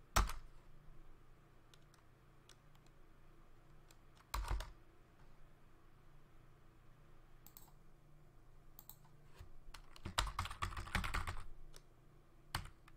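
Computer keyboard keys being typed: a few single key presses, then a quick run of keystrokes about ten seconds in as a login name is typed at the console prompt.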